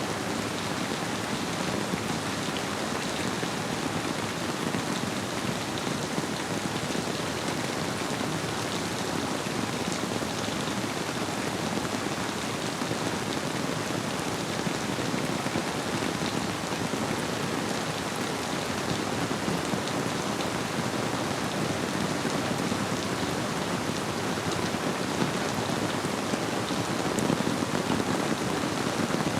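Steady rainfall, many small drop impacts over an even wash of water noise, blended with a river flowing.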